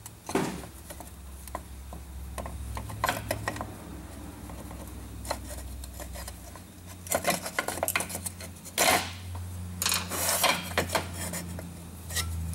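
Irregular metallic clicks, clinks and scrapes as a VW Mk4 shifter lever and its housing are worked apart by hand on a metal workbench, with a cluster of knocks about three-quarters of the way through. A low steady hum runs underneath.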